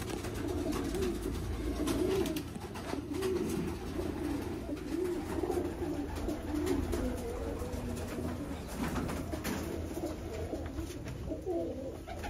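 Domestic pigeons cooing continually, their low wavering calls overlapping, with scattered short clicks and knocks.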